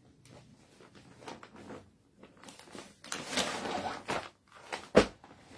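Clear plastic garment packet rustling and crinkling as it is handled and lifted, with one sharp knock near the end.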